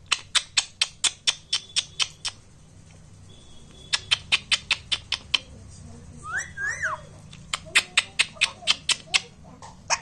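Runs of sharp mouth clicks, about four a second, in three bursts with short pauses between them, and a brief gliding chirp from a rose-ringed parakeet a little past the middle.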